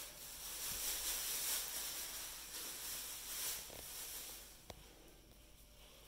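Thin plastic grocery bag rustling and crinkling as a sweet potato is pulled out of it, stopping after about four and a half seconds with a light tick.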